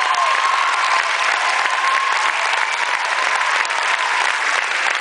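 Audience applauding, a dense, steady clapping, with one held cheer over it for the first few seconds.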